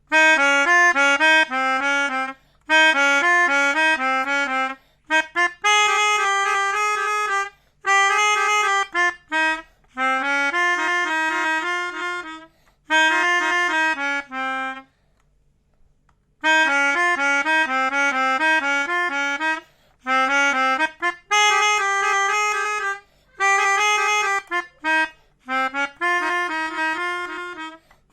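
Indonesian bus 'telolet' multi-tone horn playing a warbling tune in a series of blasts about two seconds long. Each blast steps quickly between notes, with short gaps between blasts and a longer pause about fifteen seconds in.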